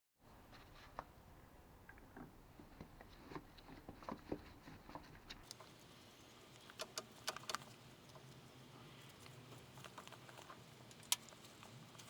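Scattered light metallic clicks and taps of a die stock, a nut and a small brass part being worked and handled by hand, with one sharper click near the end.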